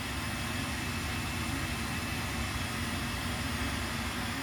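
3D printer running mid-print: a steady whirring hum of its cooling fans and motors as the print head lays down a part.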